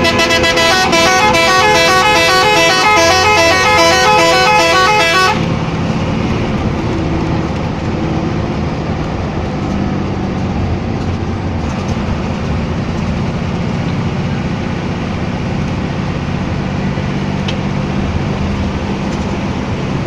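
A bus's telolet horn, a multi-tone musical air horn, playing its fast repeating tune and cutting off suddenly about five seconds in. After that the bus's engine runs steadily under road noise.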